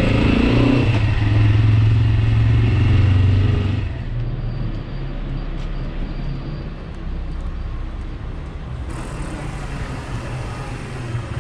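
Italika VX250 motorcycle engine running while riding. About four seconds in it drops to a quieter, steady idle as the bike stands at a street corner.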